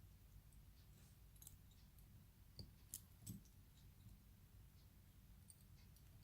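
A few faint small clicks, three close together around the middle, from the lock and picking tools being handled.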